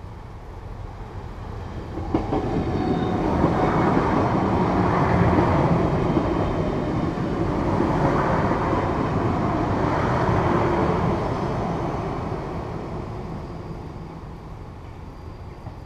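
A DM'90 diesel multiple unit passing over the level crossing. It comes up about two seconds in, stays loud for several seconds, then fades as it pulls away.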